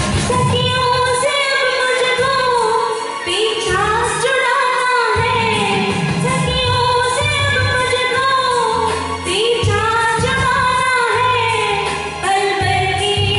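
Woman singing into a handheld microphone over recorded backing music with a steady beat.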